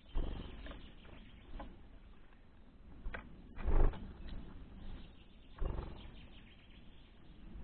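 Several dull knocks or thumps, the loudest a little under four seconds in, over a low rumble.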